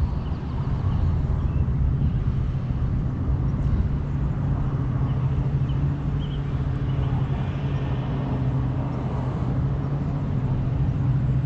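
A steady low mechanical hum under outdoor background noise.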